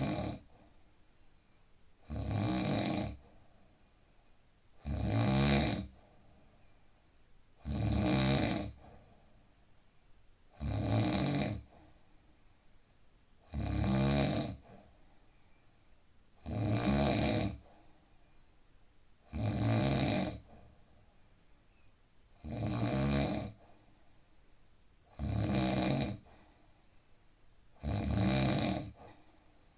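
A man snoring steadily, one rough, buzzing snore about every three seconds, each lasting about a second, with quiet breathing between.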